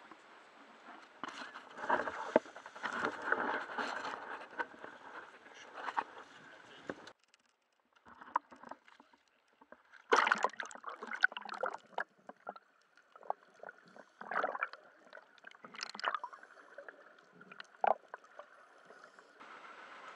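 Sea water splashing and gurgling around a small dive boat and the camera, in irregular bursts. It cuts off abruptly about seven seconds in, then returns as sparser splashes and crackles.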